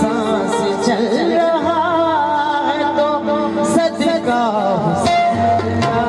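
A woman sings an Urdu devotional song, a manqabat in qawwali style, through a stage microphone, her voice bending in ornamented runs over steady held accompanying notes. Hand drums join near the end.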